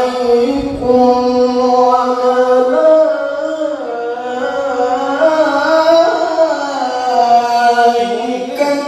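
A male qari's melodic Quran recitation (tilawah), sung in long held notes whose pitch slides and wavers in ornamented runs.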